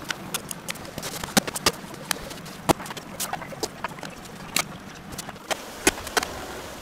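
Kitchen clatter of metal pots, lids and utensils being handled at a gas stove: many sharp, irregular clicks and clinks over a steady hiss.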